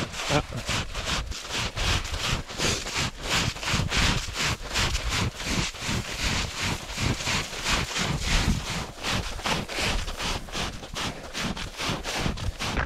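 Footsteps of runners jogging in snow, a quick, steady stride rhythm.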